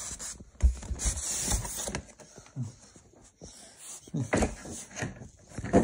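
Rustling and irregular knocks and scrapes of model train coaches and their cardboard packaging being handled right next to the microphone, with a hiss-heavy rustle about a second in and a run of short knocks near the end.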